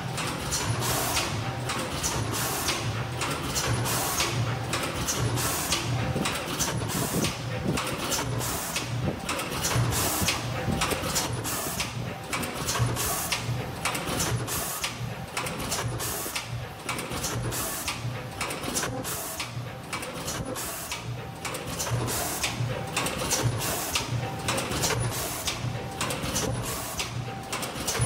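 Full-auto nylon zipper gapping, stripping and two-way welding machine running: a fast, regular clacking as its tooling cycles on the zipper tape, over a low hum that pulses in step.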